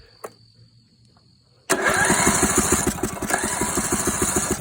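Electric starter cranking the riding mower's 14 hp Briggs & Stratton single-cylinder engine for a spark test, starting about a second and a half in as a fast, even run of pulses that keeps going.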